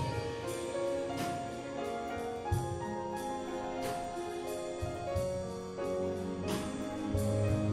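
Grand piano and string orchestra playing classical-style music. Piano chords are struck about every second and a half over held notes, with heavy bass notes near the end.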